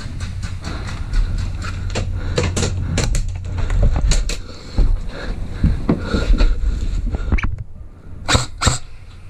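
Rustling and knocking of an airsoft player moving with his gear, over a steady low rumble, with many irregular sharp clicks. Two sharp cracks close together come near the end.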